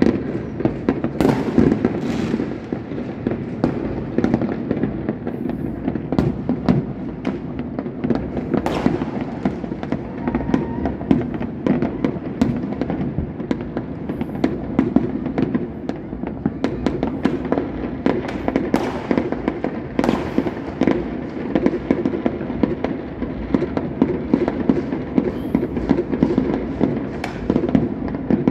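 Many fireworks going off at once, blending into a continuous crackle and rumble of bursts, with sharper, louder cracks standing out now and then.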